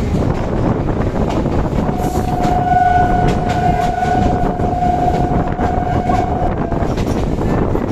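Moving train running with a steady loud rumble and clatter, and a single long train horn blast that starts about two seconds in and holds on one pitch for about five seconds.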